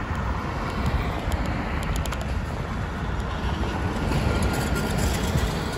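Steady low rumble and road noise of a moving vehicle, with a few light ticks a second or two in.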